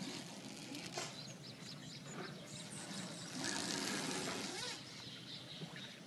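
Oars of a rowing boat dipping and pulling through river water, with splashing and dripping; a louder, hissing splash comes about three and a half seconds in and lasts over a second.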